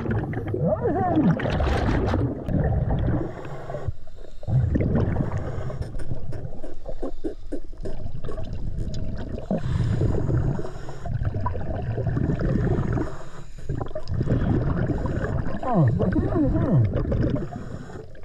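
Diver breathing underwater through a Brownie's tankless hookah regulator: a burst of gurgling exhaled bubbles every five seconds or so, with quieter inhalation between.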